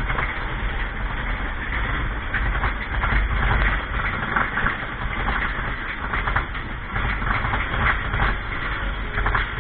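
Mine-train roller coaster running along its track: a steady low rumble with continuous rattling and clattering of the cars.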